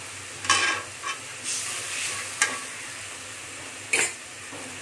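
Wet green paste sizzling in hot oil in a metal kadai, with water just added, broken by several short scrapes of a metal spatula against the pan.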